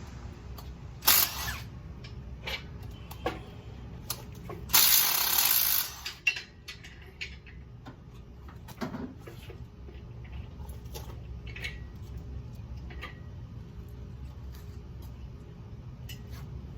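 Hand tools working on an engine: scattered clicks, taps and knocks over a steady low hum, with a short loud noise about a second in and a louder hissing burst lasting about a second around five seconds in.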